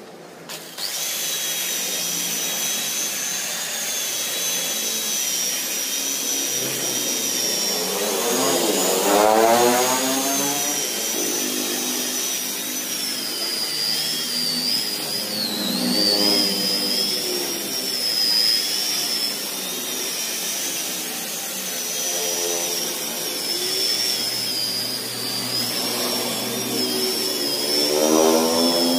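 Electric rotary car polisher running with a steady high whine, its foam pad buffing the paint of a car door; the whine wavers slightly in pitch.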